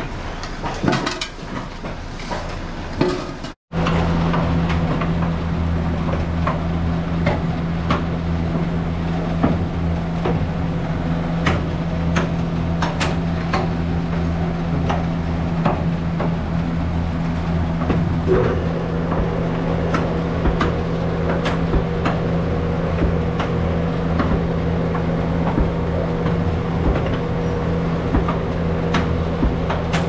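A gutter-chain barn cleaner running: its belt-driven drive unit hums steadily while the chain drags through the manure gutter with scattered clanks and clicks. It starts abruptly about four seconds in, after a few seconds of other barn noise.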